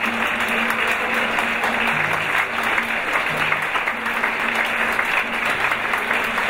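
Concert-hall audience applauding steadily, a dense clapping.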